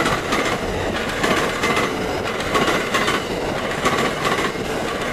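Amtrak passenger cars rolling past at speed: a steady, loud rumble of steel wheels on rail with repeated clacks as the wheel sets pass over rail joints.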